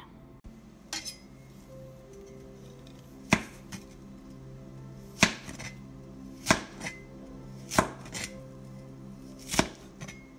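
Steel cleaver chopping down through a stack of sweet potato slices onto a plastic cutting board: about six sharp chops, a second or two apart, cutting the slices into sticks.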